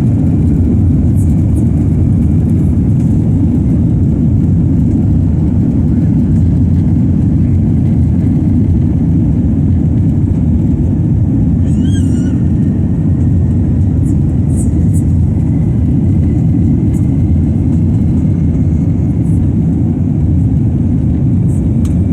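Steady airliner cabin noise heard from inside the passenger cabin: a loud, even rumble of jet engines and airflow. A brief, faint, wavering high-pitched sound comes about twelve seconds in.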